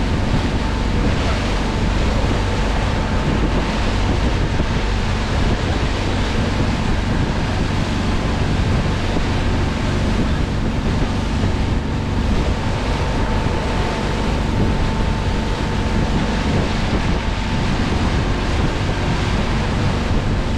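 Wind buffeting the microphone on a moving boat, a steady rush with the drone of the boat's engine underneath.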